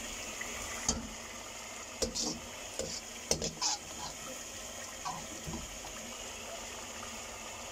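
Metal ladle clinking and scraping against a wok as fried chicken pieces are stirred and scooped, several sharp knocks in the first four seconds over a steady hiss of gravy simmering.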